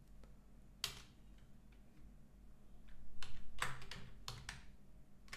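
Keystrokes on a computer keyboard: a single key press about a second in, then a run of about half a dozen keys between three and four and a half seconds in.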